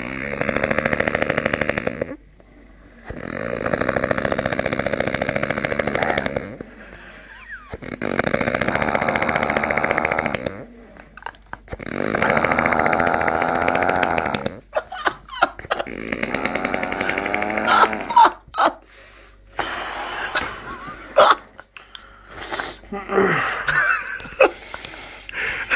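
A drunk man snoring heavily: four long, loud, rattling snores, each two to three seconds with a short pause between, which the listener likens to an Apache helicopter. After about fifteen seconds the snoring breaks up into short, irregular sounds.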